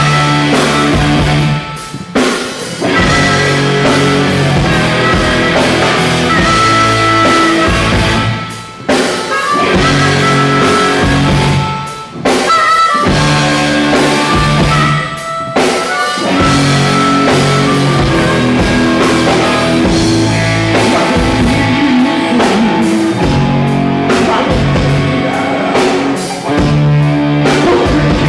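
Rock band playing live at full volume: electric guitar, bass and drum kit, with several short stops before the band crashes back in.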